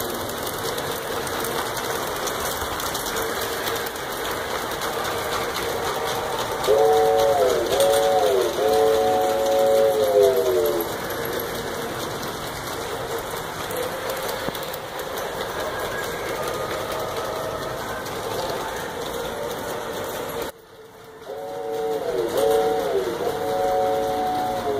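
LGB G-scale model trains running on their track, with a steady running noise, while a locomotive's sound unit blows a multi-note train whistle: two short blasts and a longer one, each sagging in pitch at its end. The sound cuts out briefly about 20 seconds in, then the same whistle pattern sounds again near the end.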